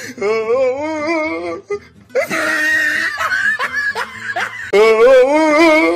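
A dog howling in long, wavering notes, twice, with a harsher, noisier stretch of vocalising between them.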